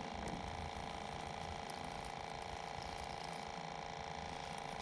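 Fishing reel being cranked, its gears giving a fine ratcheting whir, as a hooked channel catfish is reeled in. A steady mechanical hum runs underneath.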